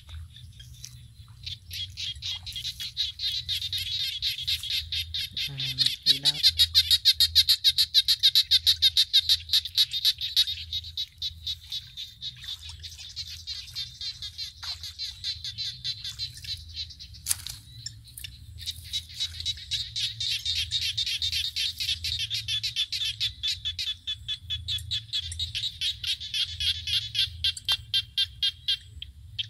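A dense chorus of rapid, high-pitched pulsing trills from many small calling animals, louder for a few seconds starting about six seconds in and again through the second half. A brief lower call sounds once about six seconds in.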